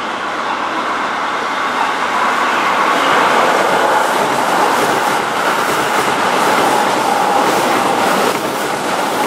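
A Keihan 13000-series electric commuter train running past close by over curved station trackwork: a steady rumble of wheels on rail, with a faint steady whine. Clicks over rail joints and points come thicker from about halfway through.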